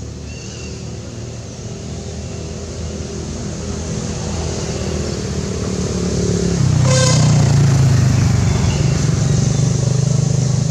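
A motor vehicle's engine running off-screen, getting steadily louder as it draws closer, its pitch shifting about two-thirds of the way through. A brief pitched sound cuts in about seven seconds in.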